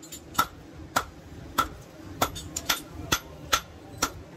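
Hand hammer striking a red-hot steel file blank on a steel anvil block in a steady rhythm, about two blows a second, each a sharp metallic ring.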